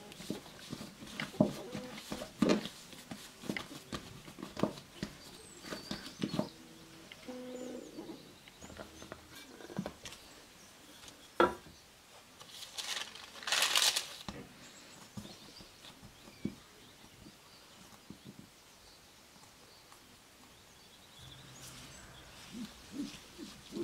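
Hands handling soft bread dough on a silicone pastry mat: soft pats, slaps and knocks as the dough is divided and shaped into balls, with one sharp knock and then a short rustle about halfway through.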